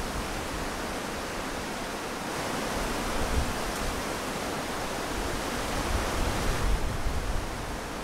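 Strong wind rushing through the leaves and branches of trees: a steady rustling hiss that swells in a gust from about two seconds in and eases near the end, with a few low rumbles.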